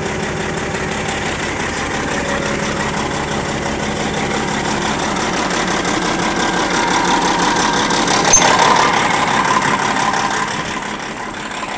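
Caterpillar D8R bulldozer's diesel engine running close by, steady throughout. It grows a little louder for a few seconds past the middle, with one sharp click about eight seconds in, then eases back slightly near the end.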